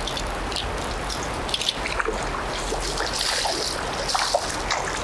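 Steady rush of a shallow, rocky trout stream, with small splashes from a hooked trout thrashing at the surface.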